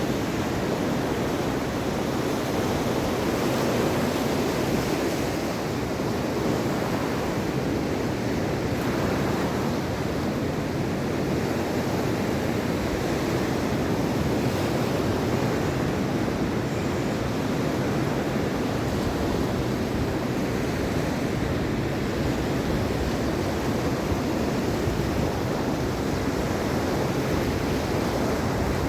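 Mediterranean Sea waves washing onto the shore in a steady, continuous surf, with some wind on the microphone.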